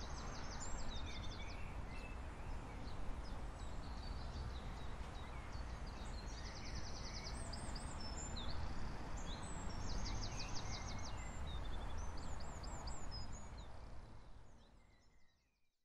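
Outdoor ambience with birds singing: several bursts of fast high trills and short chirps over a steady background hiss, fading out near the end.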